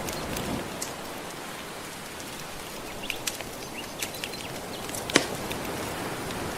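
Soft ocean waves washing steadily, with a wood fire crackling over them: scattered sharp pops, the loudest about five seconds in.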